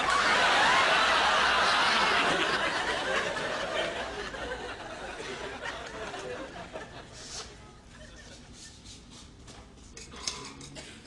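Audience laughing, loud right at the start and dying away over the next few seconds.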